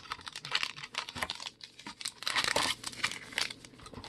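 Crinkling and tearing of a foil trading-card pack wrapper as a 2020 Donruss Baseball pack is taken from the box and opened: irregular crackles, with the loudest, densest burst a little over two seconds in.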